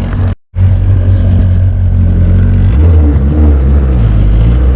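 Jet ski engine running steadily, with a brief break in the sound about half a second in and a change in engine pitch a little after halfway.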